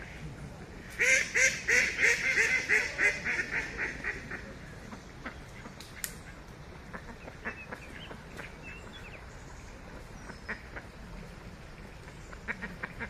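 Waterfowl calling: a rapid run of calls, about four or five a second, for some three seconds, growing fainter toward the end. After it come only faint scattered chirps and ticks.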